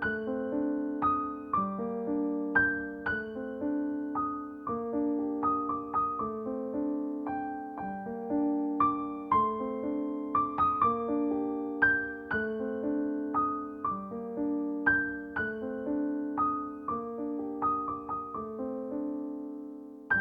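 Background piano music: a gentle, evenly paced melody of single struck notes over a low repeating accompaniment.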